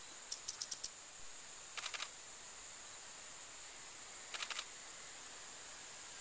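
Camera shutter firing in quick bursts: three short runs of four or five rapid clicks each, near the start, about two seconds in and about four and a half seconds in, over a steady high hiss.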